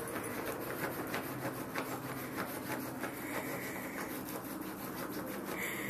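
Bedlington terrier puppy digging at a padded fabric dog bed with its front paws: a fast, uneven run of rasping scratches.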